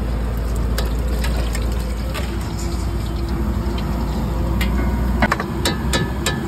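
Gathiya frying in a pan of hot oil, sizzling steadily, with a few sharp clinks, most of them near the end.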